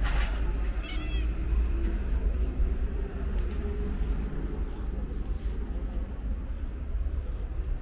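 A calico cat gives a short meow about a second in, over a steady low rumble.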